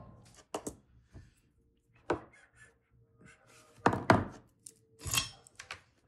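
Handling noise on a wooden desk: a circuit board and small parts set down and moved, giving a scattered series of short knocks and clicks, the loudest a quick double knock about four seconds in.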